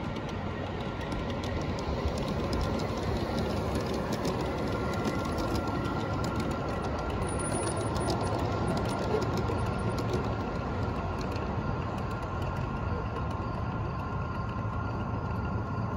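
G-scale model freight train rolling past on garden railway track, its wheels clicking rapidly over the rail joints with a steady rumble.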